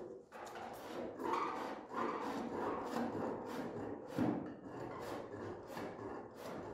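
Rhythmic scraping strokes, nearly three a second, like a hand tool rasping or filing at a workpiece.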